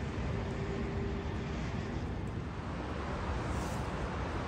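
Steady low rumble and hiss of outdoor ambience, with a faint steady hum that fades out in the first second and a half.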